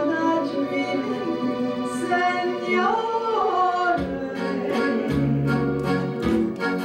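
A woman singing long held notes with vibrato, accompanied by a hollow-body electric guitar. About four seconds in, a bass line and a steady beat come in.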